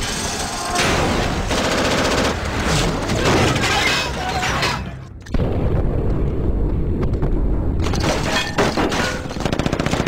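Battle sound: bursts of machine-gun and rifle fire with heavy booms. About five seconds in the sound dips briefly, then comes back as a deep, dull boom before quick gunfire resumes.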